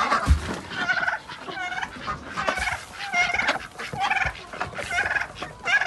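Domestic turkeys gobbling and calling, a run of short warbling calls repeated every half second or so.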